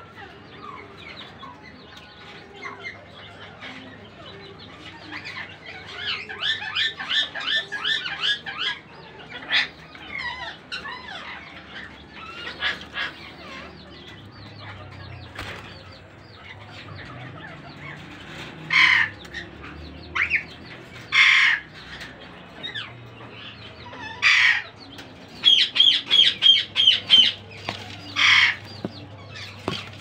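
Indian ringneck parakeets calling: a fast run of repeated chattering calls, then in the second half several loud single screeches and another quick burst of rapid calls.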